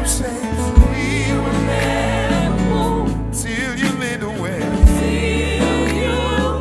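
Live gospel worship song: several singers holding long lines with vibrato over sustained bass notes. Two deep thumps stand out, about a second in and again about four seconds later.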